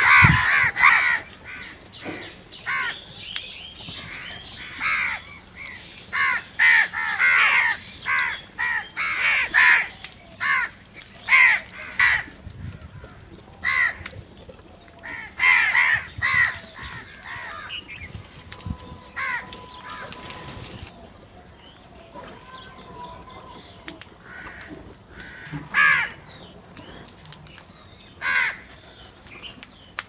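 A flock of house crows cawing, many harsh caws overlapping and following one another at first, then coming only now and then from about twenty seconds in.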